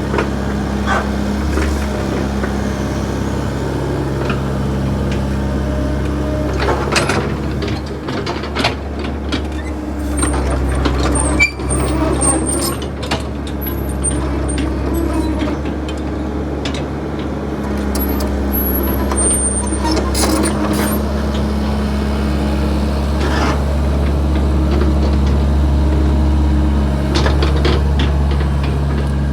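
Backhoe's diesel engine running steadily, with several sharp clanks and knocks from the machine, the loudest about eleven and a half seconds in.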